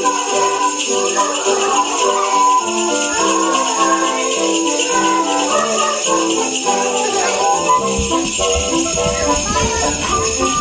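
Sleigh bells jingling steadily along with melodic instrumental music. A low knocking rumble joins about eight seconds in.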